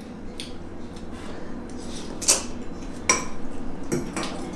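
Metal spoon clinking and scraping against a ceramic soup bowl while eating noodle soup: a few sharp clinks, the loudest two a little under a second apart in the middle.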